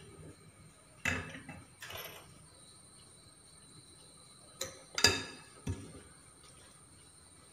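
A spoon knocking and scraping against a serving bowl while coleslaw is mixed: a few short knocks about a second and two seconds in, then a louder cluster of clinks about five seconds in.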